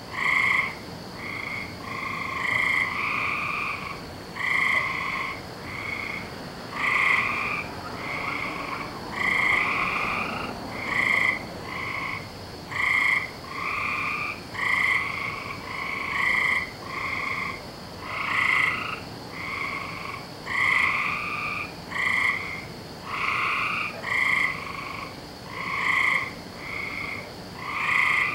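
A chorus of frogs calling without pause: short calls under a second long, overlapping and following one another about once a second.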